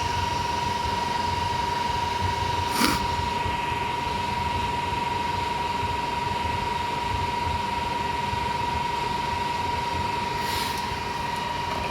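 Creality CR-20 Pro 3D printer's cooling fans running steadily during preheat, an even whirring with a constant high whine.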